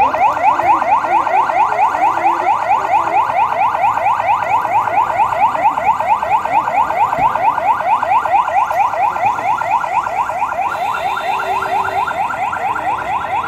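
Police vehicle's electronic siren on a fast yelp: quick rising sweeps, several a second, repeating evenly and loudly.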